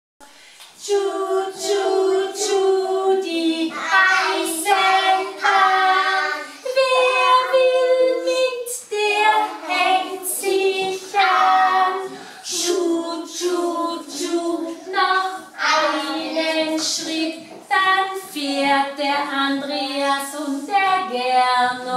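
A group of young children singing a song together with a woman, unaccompanied, starting about a second in.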